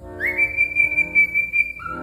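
Parrot whistling: one long note that slides up and holds, then steps down to a lower note near the end, over background music.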